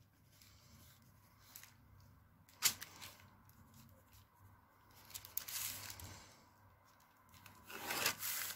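Pencil and clear plastic set square working on pattern paper: faint rubbing and rustling of paper, a sharp tap a little under three seconds in, and a louder scrape as the ruler slides across the paper near the end.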